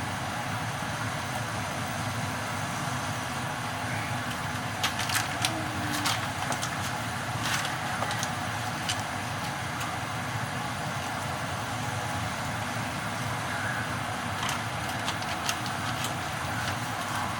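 Small mackerel deep-frying in hot oil: a steady sizzle with scattered crackles and pops.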